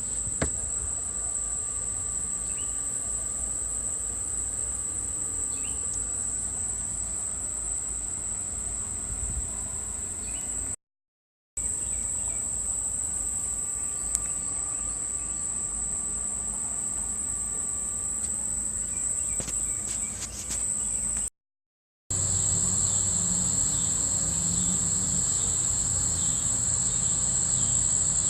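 A steady high-pitched chorus of crickets trilling, with a faint low hum beneath it that gets louder in the last few seconds. The sound cuts out completely twice, for under a second each time.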